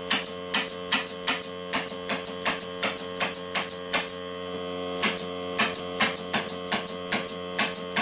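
Pneumatic stapler loaded with 422 staples firing rapidly, about four sharp shots a second with a short break about four seconds in, over the steady hum of a Greenworks 40V cordless compressor's motor running to keep up with the air demand.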